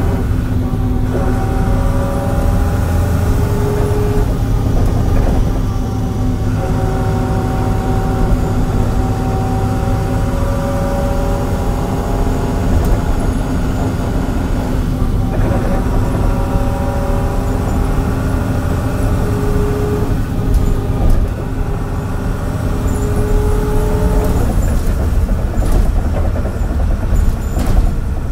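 MAN NL202 diesel city bus idling at a standstill: a steady low engine rumble with higher whining tones drifting in and out, and a few short sharp noises near the end.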